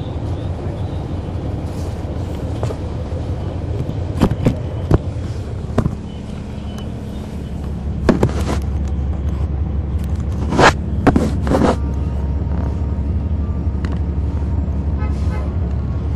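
Cummins ISL9 diesel engine of a NABI 40-foot transit bus heard from on board, a steady low drone that dips about six seconds in and then grows louder from about eight seconds on. Sharp clicks and rattles break in around four to five seconds and again around ten to twelve seconds in.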